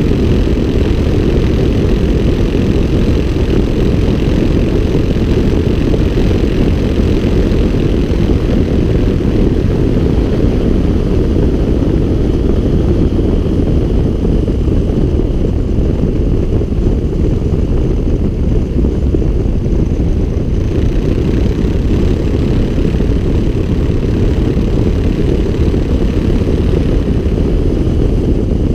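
Light aircraft's engine and propeller running steadily in low flight, heard as a loud, even drone mixed with wind rush.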